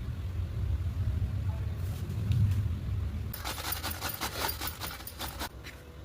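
Cooking in a pan: a low steady rumble, then, a little over three seconds in, about two seconds of dense, irregular crackling, as of ingredients spluttering in hot oil.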